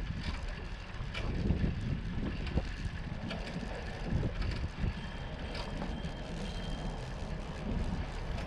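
Bicycle riding over a city street, heard through a handlebar-mounted action camera: steady low rumble from tyres and wind with irregular knocks and rattles from the bike. A faint thin high tone comes in briefly a little past the middle.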